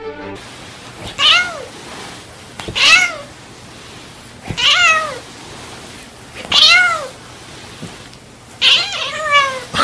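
A cat meowing repeatedly: about six meows, each rising then falling in pitch, spaced roughly two seconds apart, with the last two coming close together near the end.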